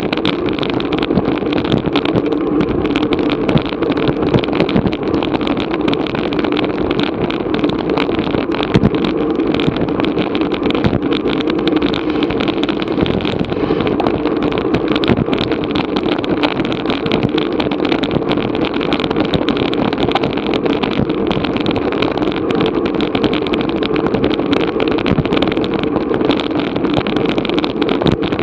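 Steady, loud rush of wind buffeting an action camera carried on a bicycle at race speed, with small crackles through it.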